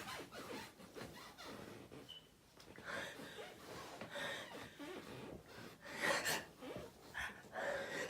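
A person's short, breathy gasps, sniffs and snorts, with a louder breathy burst about six seconds in.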